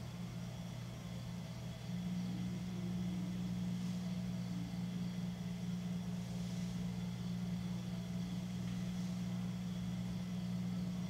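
Electric potter's wheel running with a steady low hum, a little louder from about two seconds in.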